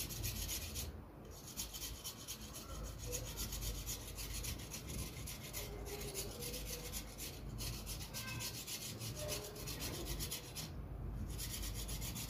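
Kitchen knife blade scraping the tough skin off a lotus root in rapid, repeated strokes, pausing briefly about a second in and again near the end.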